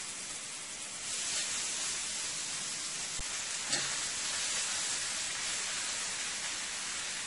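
Thin marinated steaks sizzling in a hot cast-iron skillet. The sizzle grows louder about a second in as more pieces go into the oil, and there is a single click, likely the tongs against the pan, a few seconds in.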